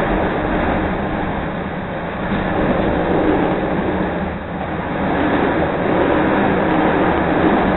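CTA Red Line rapid-transit train running at speed between stations, heard from inside the car as a steady rumble and rush of wheels on rail.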